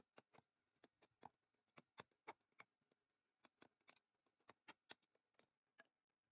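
Faint, sharp taps of a chisel being struck as it cuts a rectangular mortise into a turned wooden bed leg, irregular, about two or three a second.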